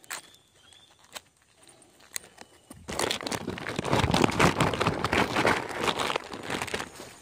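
Woven plastic sack rustling and crinkling loudly as it is gripped and handled, starting about three seconds in after a few faint clicks.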